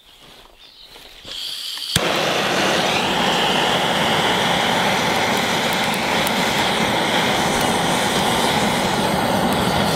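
Handheld gas blowtorch: gas hissing out, a sharp ignition click about two seconds in, then the lit torch flame running with a loud, steady hiss.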